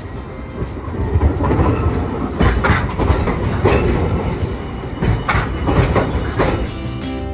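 A Hiroshima Electric Railway Green Mover LEX low-floor tram passes close by, its rumble growing louder. Its wheels clank sharply several times as they run over the rail joints and points of the junction.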